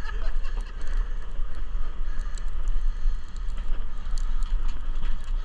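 Fishing boat's engine running steadily with a low rumble and hum, with scattered light clicks over it.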